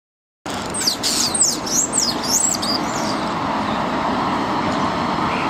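European starlings giving a quick run of whistled calls, about half a dozen rising and falling glides in the first three seconds, over a steady hum of city traffic that carries on alone afterwards.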